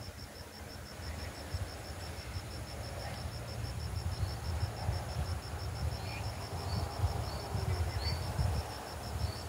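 An insect calling in a steady, rapid train of evenly spaced high-pitched pulses, with short bird chirps from about halfway through. Under it is a low rumbling noise that grows louder about halfway through.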